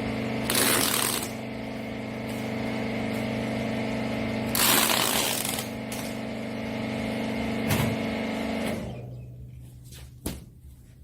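Hydraulic rag baler press running with a steady motor-and-pump hum, and two loud rushing bursts of about a second each, at the start and about four and a half seconds in. There are a few short knocks, and the hum dies away about nine seconds in.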